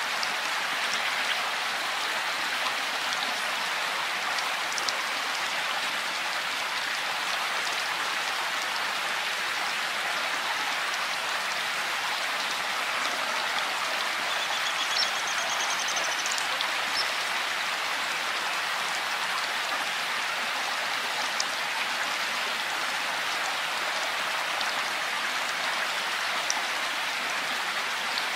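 Steady rain falling, an even hiss with occasional individual drops ticking louder.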